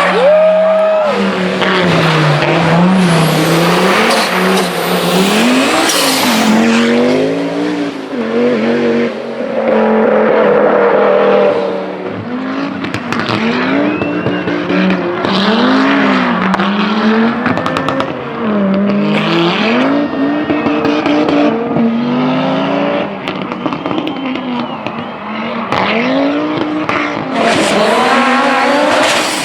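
Audi Quattro rally cars' turbocharged inline five-cylinder engines at full effort, the pitch climbing and dropping again and again as the drivers run up through the revs and shift gears.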